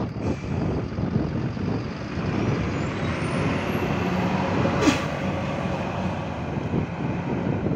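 MAZ 203 city bus pulling away from a stop: steady engine and road rumble, with a high whine rising in pitch over a couple of seconds as it gathers speed. There is one brief sharp burst of noise about five seconds in.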